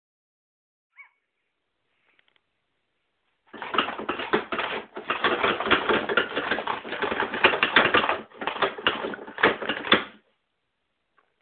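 Paper towels rustling and crackling as a cat pulls them off the roll. A dense run of rapid crackles starts a few seconds in and lasts about six seconds, with a few short breaks.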